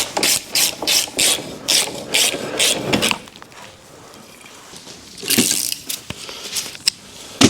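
Ratchet wrench being worked back and forth to undo a bolt, a quick run of clicking strokes about three a second that stops about three seconds in. A single longer rasp follows past the middle, with a couple of light clicks near the end.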